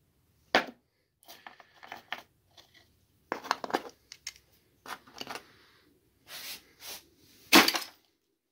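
Small machined metal pieces of a broken turner's cube clinking and scraping as they are handled and gathered off a workbench, in a string of separate clicks and scrapes. The loudest clatter comes near the end, as the pieces are dropped into a scrap bucket.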